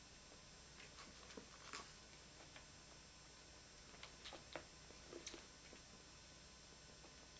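Near silence, broken by faint scattered clicks and rustles: a few about a second in and a small cluster about four to five seconds in, from rabbit kits shifting and nursing under their mother.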